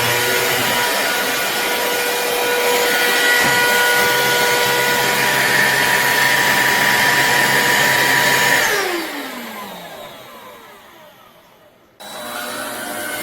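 Black+Decker POWERSERIES+ 20V MAX cordless stick vacuum running with a steady motor whine. Near the end it cuts out and winds down in a falling whine for about three seconds. It then starts up again abruptly and runs steadily.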